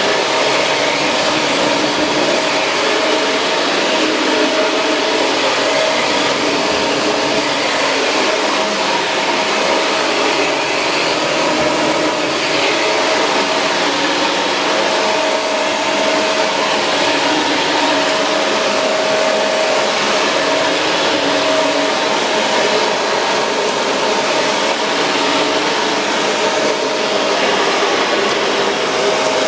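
Shark Rotator Pro Lift-Away NV500 upright vacuum cleaner running steadily, a constant rushing of air with a steady whine from the motor.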